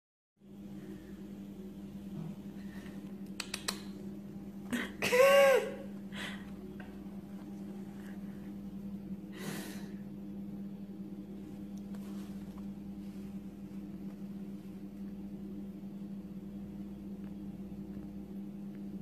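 A bush baby (galago) in a jacket pocket gives one short, high squeaky call that rises and falls, about five seconds in. Around it are a few soft clicks and rustles and a steady low hum.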